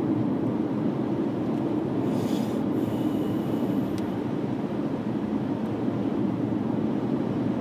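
Steady road and engine noise heard from inside a moving car at highway speed, with a brief higher hiss added about two seconds in.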